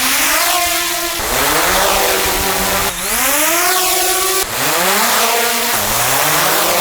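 Small DJI quadcopter drones' motors and propellers spinning up: a pitched whine that rises and then levels off, heard in several short clips cut one after another.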